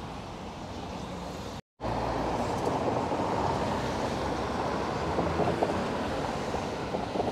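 Steady city street traffic noise from passing cars. It cuts out briefly about two seconds in and comes back louder.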